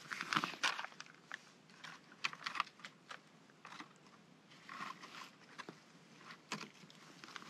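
Faint, irregular small clicks and rustles of a backpack being rummaged and a plastic snack wrapper being handled.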